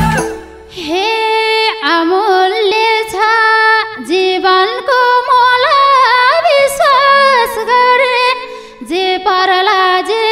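A woman sings a Nepali dohori verse solo into a microphone in long, ornamented phrases, with short breaths between phrases near the start and about eight seconds in. The band drops out almost entirely, leaving a faint held note beneath the voice.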